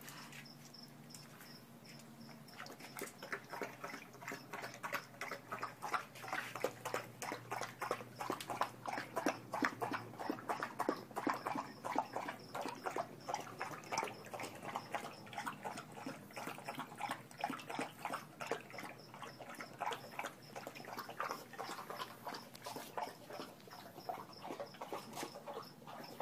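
Pregnant English bulldog snorting and snuffling, with many quick, irregular noisy breaths.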